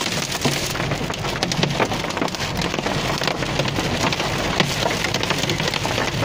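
Torrential rain beating on a car's roof and windshield, heard from inside the cabin: a dense, steady hiss with many sharp individual hits.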